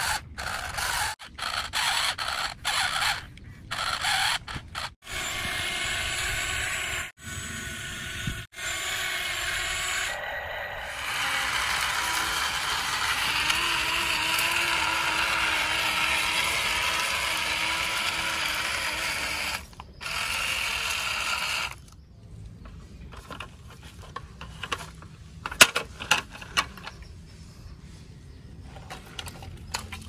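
Small electric motors and plastic gearboxes of toy construction vehicles whirring, starting and stopping abruptly several times, then a longer steady whir. In the last third it drops to a quieter background with scattered sharp clicks of plastic parts.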